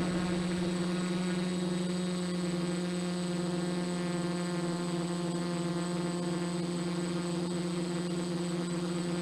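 F450 quadcopter's brushless motors and propellers buzzing steadily at one constant pitch while it hovers in place.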